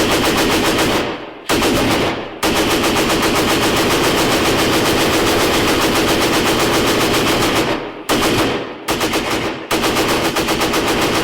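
Automatic gunfire fired indoors, in long rapid bursts broken by four brief pauses.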